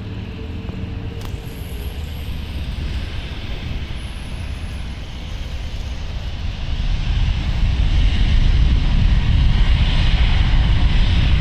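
Airbus A380's four Engine Alliance GP7200 turbofans at takeoff power during the takeoff roll: a deep rumble with a hiss above it, growing louder partway through. Road traffic passing on the highway is mixed in.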